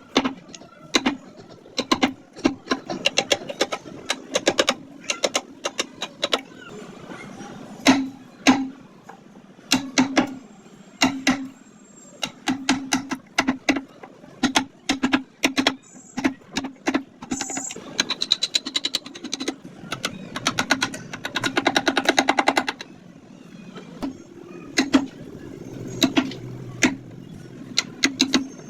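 Wood carving chisel tapped into wood: a run of sharp taps at an uneven pace, with a fast, dense rattle lasting about two seconds past the middle.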